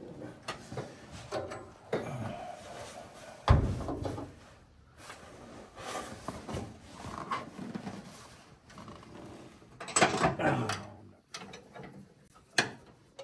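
Hand tools working on metal: scattered clinks and clicks, with one sharp knock about three and a half seconds in and a louder clatter around ten seconds in.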